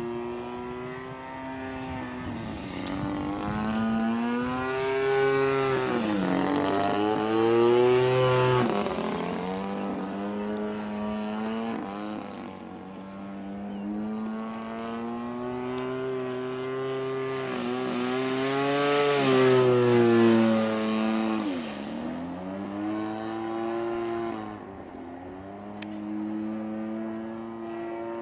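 Single-cylinder 30cc two-stroke gasoline engine of an MX2 RC aerobatic airplane in flight, its pitch rising and falling with throttle and manoeuvres. It is loudest twice, about eight and twenty seconds in, as the plane passes close, each time followed by a quick drop in pitch as it flies away.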